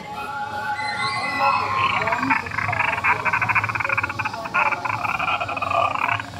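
A scare actor's throaty, croaking growl: a rapid rattling rasp held for about four seconds from about two seconds in, after a few shorter gliding vocal sounds.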